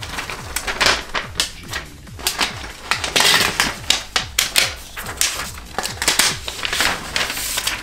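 Paper protective wrap being peeled and ripped off a new tablet by hand: a dense, crackling tearing rustle broken by many sharp rips.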